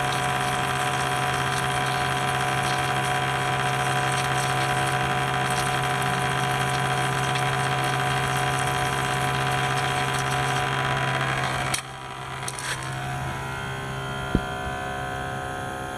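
Battery-powered sprayer's pump motor running with a steady hum while soapy water is sprayed from the wand, cutting off abruptly about twelve seconds in. A single sharp click near the end.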